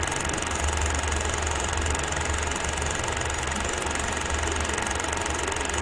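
Film projector running: a steady mechanical whir with a strong low hum and an even hiss.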